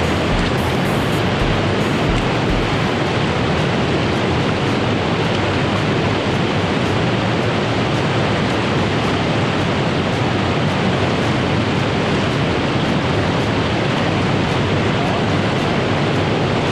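Fast river water rushing over shallow rapids close by, a loud, steady noise.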